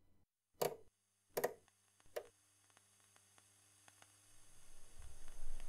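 Three short, sharp taps about three-quarters of a second apart, followed by faint scattered ticks and a low rumble that swells up near the end.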